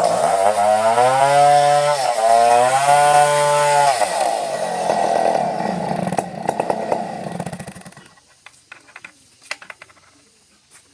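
Gasoline chainsaw running at high revs, its pitch dipping briefly twice, then dropping to a lower, rougher run after about four seconds and cutting off about eight seconds in. Faint scattered clicks follow.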